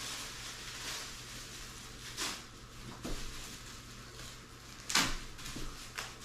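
Handling noise as sink accessories are taken out of their packaging: light rustling with a few sharp knocks, the loudest about five seconds in.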